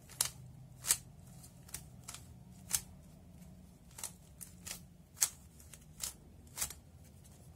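Plastic 3x3 speed cube being turned through an OLL algorithm: a series of sharp clicks from its layers snapping round, about two a second and unevenly spaced, over a faint steady hum.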